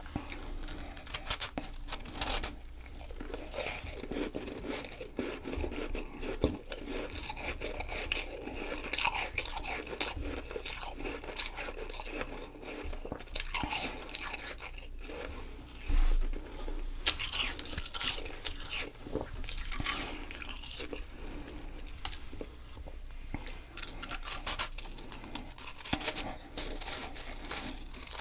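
Close-miked chewing and crunching of a mouthful of powdery packed ice, a steady run of small crackles and crunches, with one louder thump about halfway through. Near the end a fresh bite goes into the ice ball.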